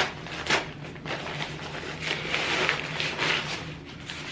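Packaging rustling and crinkling as a folded fabric softbox is handled and pulled out of its black bag, with a couple of sharp clicks about half a second apart near the start.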